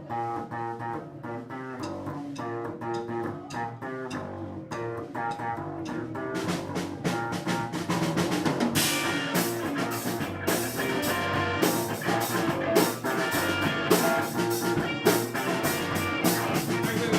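A live rock-funk band playing an instrumental passage on electric guitar, bass and drum kit. The drums fill out partway through, with cymbals coming in about six seconds in and the band getting louder from about nine seconds in.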